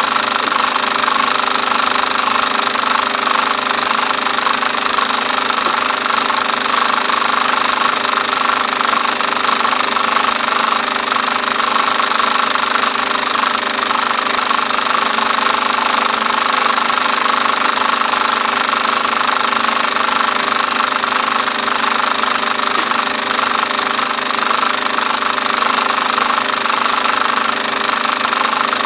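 Film projector running: a steady, rapid mechanical clatter with a constant hum.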